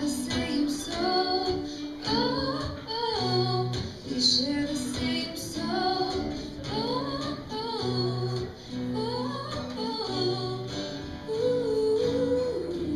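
A song with a woman singing over instrumental accompaniment, with sustained low notes beneath the voice.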